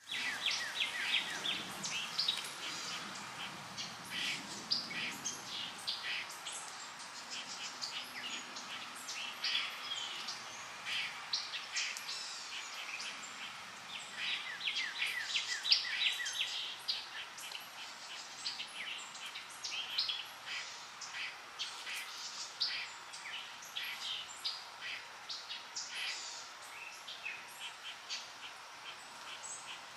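Many small birds chirping and trilling in quick, overlapping calls, over the steady rush of flowing water.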